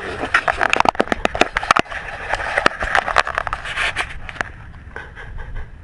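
Dense crackling and scraping handling noise from a GoPro Hero3 strapped to a dog's collar as the dog moves. It thins out about four and a half seconds in.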